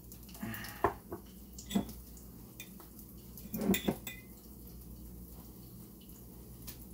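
Light kitchen clatter: a few spaced clinks and knocks of a fork, plate and glass pickle jar as pickles are fished out and put on the burgers, the loudest about halfway, over a faint low hum.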